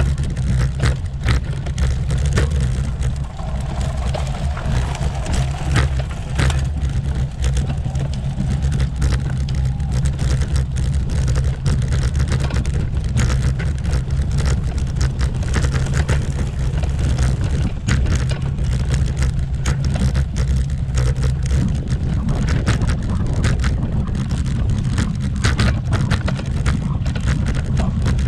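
Bicycle rattling and rumbling over rough cobblestones: a dense, steady, loud rumble with constant rapid clattering jolts as the wheels hammer across the stones.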